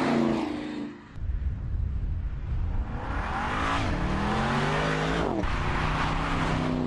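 Porsche Panamera Turbo's twin-turbo V8 sweeping past with a falling pitch, then, after a break, accelerating hard with its engine note climbing. About five and a half seconds in the pitch drops at an upshift, and the engine runs on steadily.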